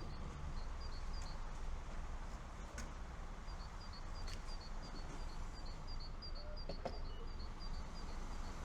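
A small bird chirping: short high chirps repeating about three times a second, pausing for a couple of seconds early on, over a low steady outdoor rumble, with a few faint clicks.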